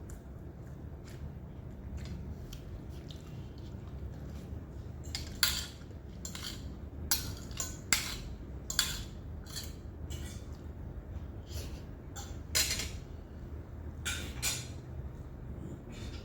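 Cutlery clinking and scraping on plates and bowls while people eat: a scatter of sharp clinks, several louder ones in the middle, over a low steady hum.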